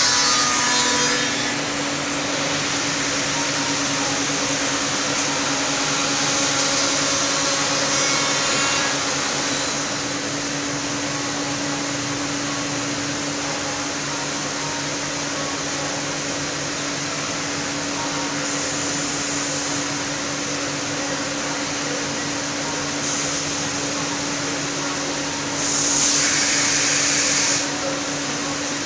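Weinig Conturex CNC woodworking machining centre running: a steady drone from its spindles and dust extraction. Louder hissing stretches come briefly at the start and again for about two seconds near the end.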